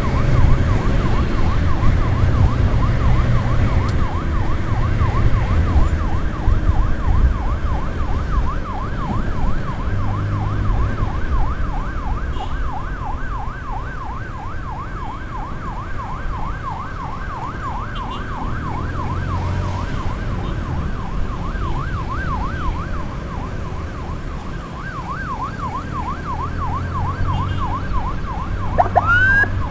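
Electronic emergency siren in a fast yelp, rising and falling about four times a second, over low engine and road rumble from a moving motorcycle. Near the end it breaks into two quick rising whoops.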